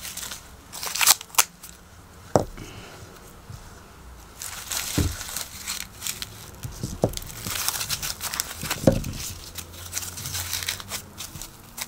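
Dry, papery husks being torn and peeled off popcorn maize ears by hand, crinkling and rustling, with a few sharp cracks as husk leaves snap off.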